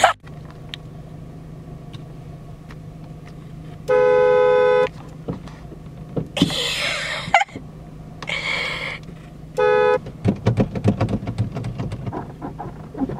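Car horn honking twice: a blast of about a second about four seconds in, and a short toot near ten seconds, over a low steady hum. Two brief rushing noises fall between the honks.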